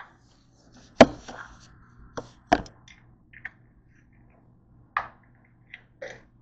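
Handling noise: a string of sharp knocks and taps, the loudest about a second in and again about two and a half seconds in. The camera is being set down on the counter, and hands then handle a small white plastic item.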